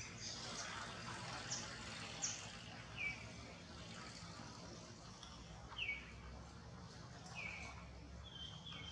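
Birds calling: two sharp high chirps, then several short falling calls every second or two, over a steady background hiss.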